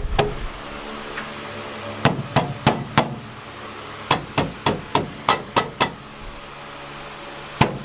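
Hammer blows on the sheet-metal door post of a 1993 Ford Mustang GT as it is beaten back into shape: one blow at the start, a run of four about two seconds in, a quicker run of seven after that, and one more near the end. A steady low hum runs under them.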